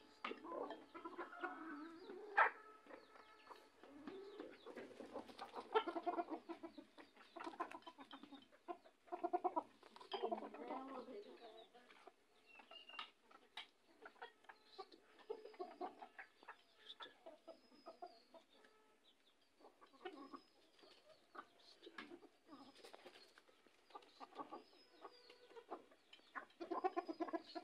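Domestic chickens clucking in irregular bursts, several birds calling at once, with short high chirps through the middle stretch.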